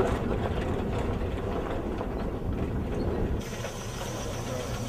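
Motor vehicle driving: a steady low rumble with faint knocks, which cuts abruptly about three and a half seconds in to a quieter, steadier hum.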